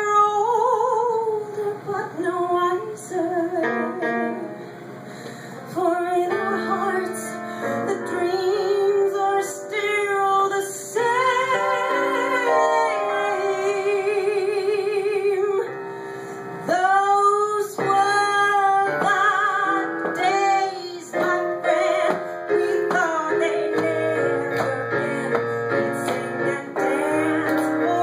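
A woman singing a song into a microphone with vibrato on long held notes, accompanied on an electronic keyboard.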